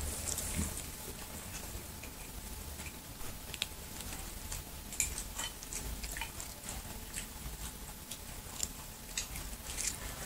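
A kitten chewing pieces of raw cucumber: irregular small crisp crunches and clicks.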